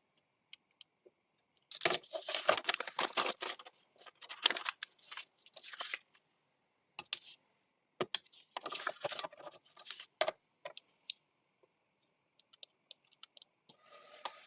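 Paper being handled, rustling and crinkling in two stretches of a few seconds each, with light clicks and taps between.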